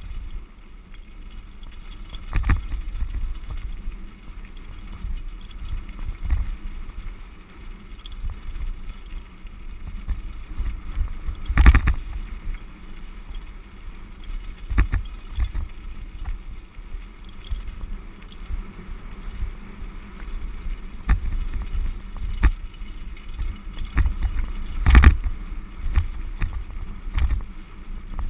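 Mountain bike rolling fast down a loose gravel road: tyres crunching over stones and wind buffeting the microphone, with sharp knocks and rattles as the bike jolts over bumps, the loudest about 12 and 25 seconds in.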